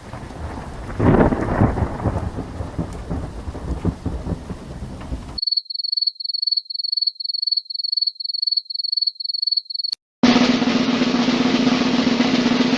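Three stock sound effects in turn: a noisy rumble with crackles, then a high electronic beep repeating about three times a second for four or five seconds, then, after a brief break, a loud harsh noise over a steady low hum.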